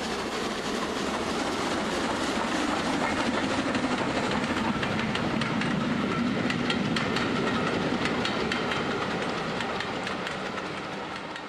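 A train running past, a steady rumble with rapid clicking of wheels over rail joints, growing louder over the first few seconds and fading away near the end.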